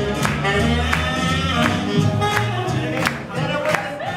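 Live swing jazz band playing an up-tempo number with a vocalist singing. The drum kit and upright bass keep a steady beat under the melody.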